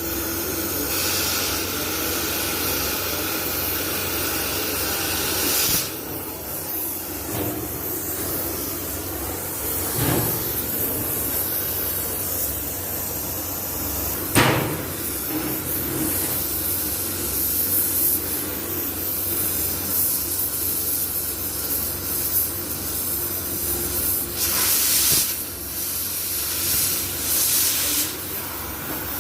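Steady hissing and crackling from welding work on steel, with two sharp knocks about ten and fourteen seconds in.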